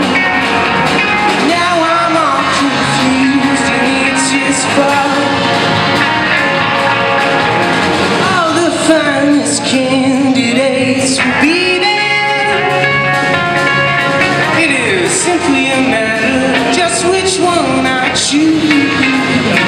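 Live rock band playing: a man singing lead over electric guitars, bass and a drum kit.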